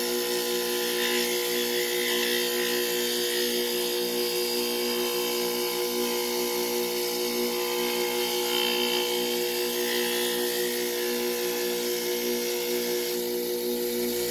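Electric motor spinning a leather buffing wheel, running with a steady hum. A chisel is honed against the compound-charged leather, adding a soft rubbing hiss that comes and goes.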